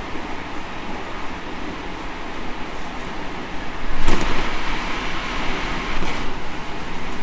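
Onboard running noise of a JR Central 313 series 5000-subseries electric train underway: a steady rumble of wheels on track, swelling into a louder rush about four seconds in.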